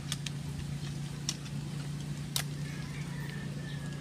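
A steady low hum with a few short, sharp clicks, the loudest about two and a half seconds in, as the bicycle's handlebar and brake lever are handled.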